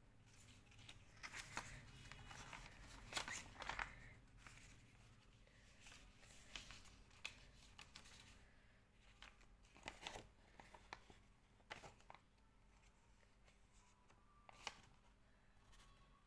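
Faint rustling and crinkling of a sheet of paper being folded and creased by hand, in scattered short bursts that are busiest in the first few seconds and again about ten seconds in.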